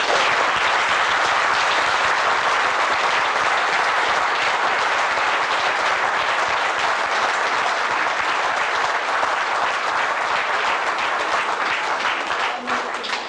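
Audience applauding: dense clapping that starts all at once, holds steady and thins out near the end.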